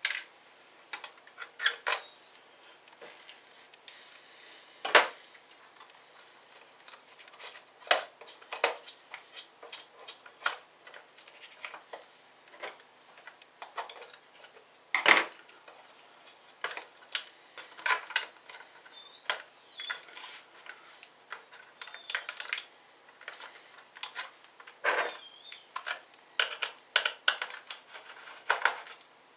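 Irregular clicks, taps and knocks of small plastic and metal laptop parts being handled and worked on during disassembly, a few of them sharp and loud.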